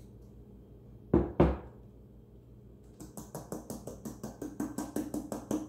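A heavy glass beer mug set down on a table with two solid knocks, then a quick, even run of light ticks, about six a second, as the last of the beer drips from the emptied can into the mug.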